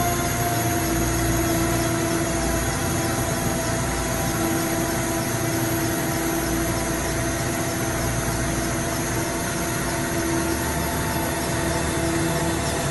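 Helicopter engine and rotor noise heard from inside the cabin at the open door: a steady whine over a low rumble, without change, during a winch lift of a person from a flooded rooftop.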